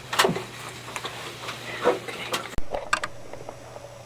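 A few separate knocks and clicks, with one sharp thump a little past halfway, over a faint steady hum.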